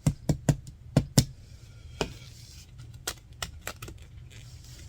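About ten sharp, irregular clicks and taps of hand work on a cow-horn powder horn, picking the old, dried-out leather strap out of it. Most come in the first second and a half, then sparser.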